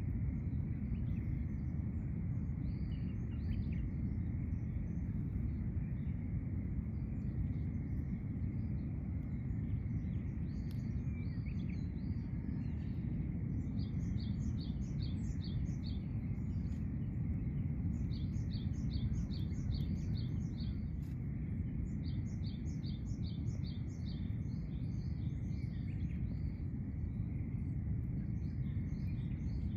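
Steady low outdoor rumble under a faint steady high hum. Midway, a bird calls three times, each a quick run of evenly repeated short notes.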